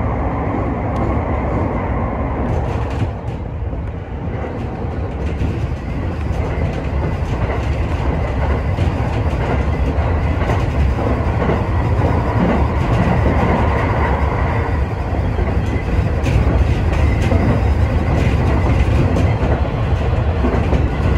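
Sotetsu commuter electric train running along the line, heard from inside the leading car: a steady rumble of wheels on rail with a few clicks, growing gradually louder after a few seconds in.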